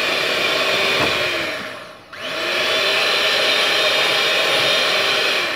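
Electric hand mixer running, its twin beaters whirring through a cream cheese and whipped-topping mixture in a bowl. The motor winds down about a second and a half in and spins back up about two seconds in.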